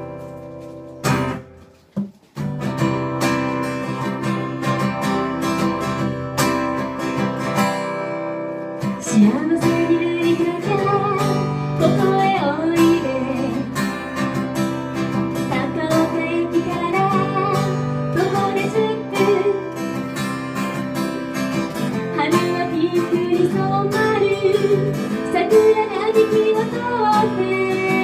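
Live acoustic guitar and a woman singing. After a short break about two seconds in, the guitar plays alone, and her voice comes in at about nine seconds, carrying the melody over the guitar accompaniment to the end.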